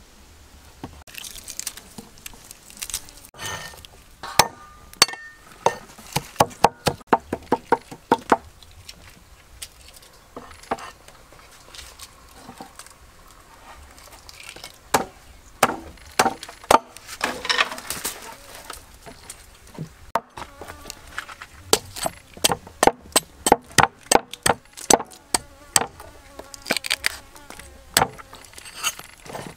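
Cleaver chopping: runs of sharp knocks, some in quick series of several strikes a second, ending with hacking into a green coconut.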